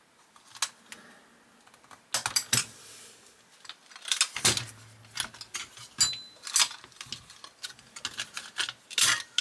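Irregular small clicks and knocks of a diecast model car being worked on with a small screwdriver, its plastic and metal parts tapping and clattering. Faint at first, then busier from about two seconds in.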